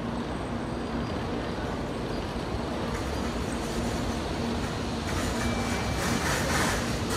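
Shinkansen station platform ambience: a steady train rumble and hum that grows louder toward the end.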